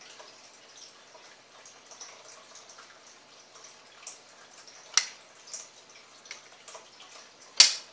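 Makeup brush sweeping and tapping blush onto the cheek: soft, faint brushing with small ticks. Two sharp clicks break in, about five seconds in and, loudest, near the end.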